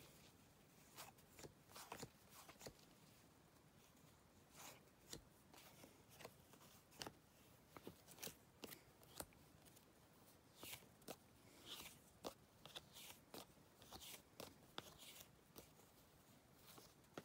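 Faint, scattered clicks and rustles of cardboard baseball cards being handled, shuffled and compared in the hands.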